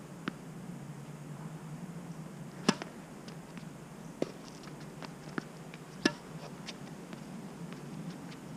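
Quiet outdoor ambience with a handful of isolated sharp knocks of tennis balls, the two loudest about a third and about two thirds of the way through.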